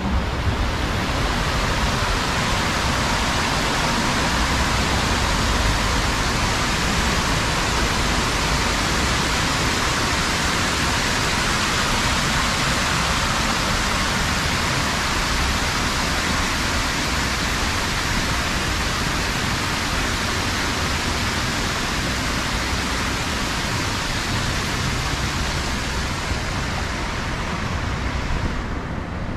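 Steady rush of water spilling down a stepped sidewalk fountain cascade, falling away near the end, with a low traffic rumble underneath.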